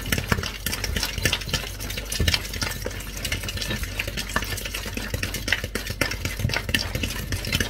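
A metal fork beating soft butter and eggs in a plastic mixing bowl: rapid, continuous clicking and scraping strokes against the bowl.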